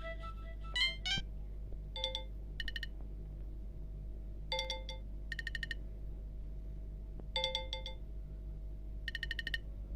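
An Alcatel OneTouch 2005D ringtone or alert tone played through a Nokia Asha 300's loudspeaker. A few quick electronic notes in the first second are followed by pairs of short, trilling electronic chirps that repeat about every two and a half seconds.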